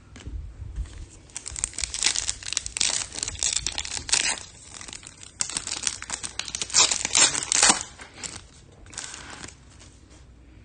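A trading card pack's foil wrapper being torn open and crinkled, in a run of crackling bursts that die away about eight seconds in, with a little more rustling near the end.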